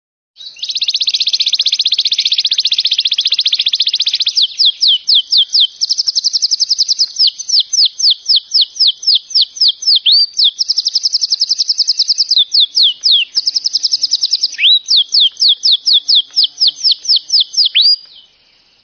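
A songbird singing: loud, high, rapid trills alternating with fast runs of repeated downward-sweeping whistled notes, starting and stopping abruptly.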